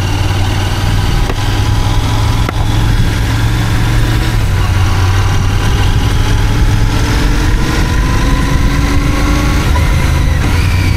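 Royal Enfield Continental GT 650's parallel-twin engine running as the motorcycle rides off, with a strong steady low drone and a pitch that slowly climbs as it gathers speed. A vehicle horn sounds near the end, falling in pitch.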